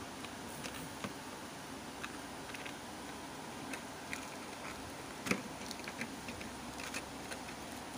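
Plastic packaging crinkling and crackling as it is handled by hand: a thin plastic wrap and a clear plastic blister tray, in scattered small clicks, the sharpest about five seconds in.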